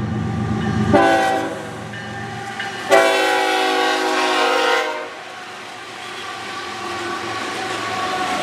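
Florida East Coast freight locomotive's air horn sounding the grade-crossing signal: a short blast about a second in, then a long blast of about two seconds. The train's rumble and wheel noise then grow louder as it approaches and passes.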